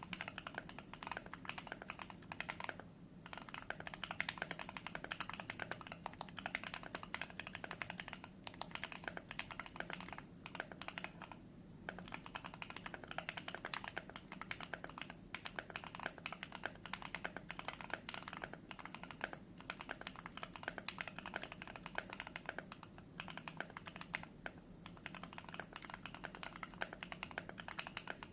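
Fast continuous typing on a Keychron Q3 mechanical keyboard with a polycarbonate plate and lubed and filmed Gateron Ink Black v2 linear switches, the keystrokes clacking in rapid runs with a few brief pauses.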